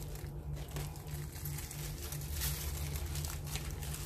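Crinkling and rustling of the wig's paper and plastic packaging as the wig is lifted out of its box and handled.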